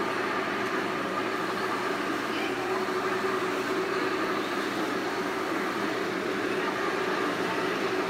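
Steady mechanical drone of many 1/16-scale remote-control tanks running at once.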